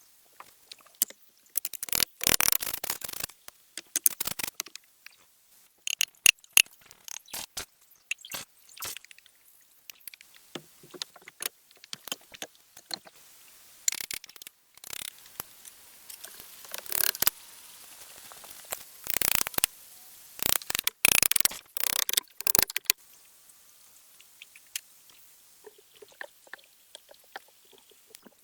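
Irregular scrapes, knocks and short rustling bursts from hand work on raw wood, with no steady machine sound.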